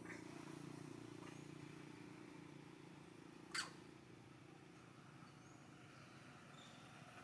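Near silence: faint forest ambience, broken once, about three and a half seconds in, by a single brief, sharp high-pitched sound.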